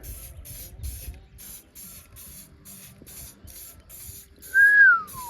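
Aerosol can of spray-on stainless paint hissing in short, even pulses, about three a second. Near the end a loud whistle rises briefly and then falls.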